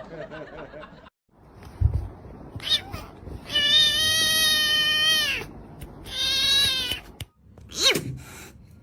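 A cat meowing: one long meow held level for nearly two seconds, dropping at the end, followed by two shorter calls.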